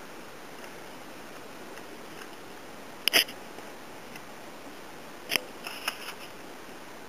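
Handling noises over a steady low room hiss: a sharp click about three seconds in, another about five and a half seconds in, then a few smaller clicks.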